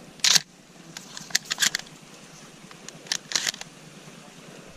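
A shotgun being handled and loaded by hand: a short sharp scrape just after the start, then groups of quick clicks about a second and a half in and again around three seconds, as shells are pushed into the magazine.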